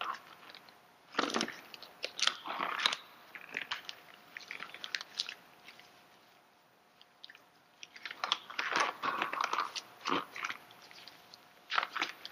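Disposable latex gloves being pulled onto both hands: irregular crinkling and rustling in several bouts, with a quiet pause in the middle.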